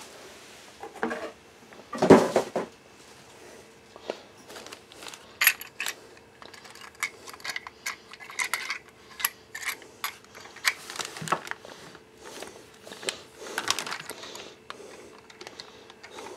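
A plastic handheld camera stabilizer grip being handled: a couple of knocks in the first two seconds, the second the loudest, then a long run of small clicks and taps as the rig is turned over and its mounting plate worked, with brief rustles later on.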